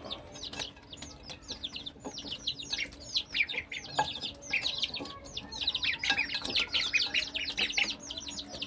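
A brood of ducklings and chicks peeping nonstop while they feed, many quick downward-sliding peeps overlapping one another.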